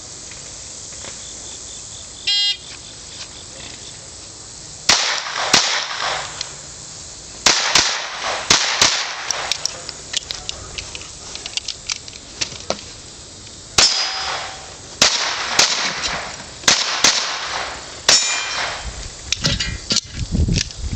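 Electronic shot-timer beep about two seconds in. Then a pistol fires quick strings of shots with short pauses between, and steel plates ring with a clang on hits.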